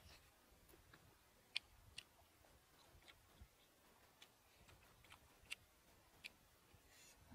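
Near silence broken by faint, sparse sharp clicks, roughly one a second, as crisp fried frog is torn apart by hand and bitten.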